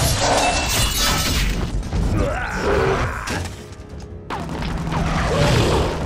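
Cartoon fight sound effects of a robot truck being smashed: crashes and mechanical clatter over background music. The noise drops away briefly a little past halfway, then picks up again.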